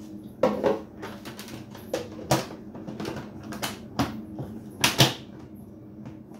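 Plastic fridge-organizer container being handled: a series of sharp plastic clicks and knocks as its lid is set on and its clips snapped shut, the loudest near the end.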